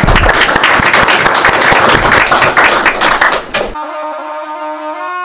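Audience applauding with many hands clapping, which stops suddenly after about three and a half seconds and gives way to instrumental music with long held notes.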